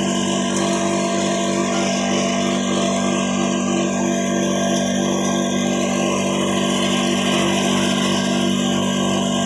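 Homemade leaf chopping-and-grinding machine running steadily, its motor giving a constant loud hum while it chops green leaves.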